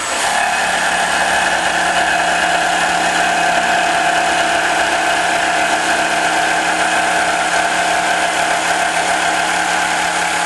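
Bosch cordless jigsaw cutting through plywood, the reciprocating blade picking up to full speed just after the start and then running steadily through the cut.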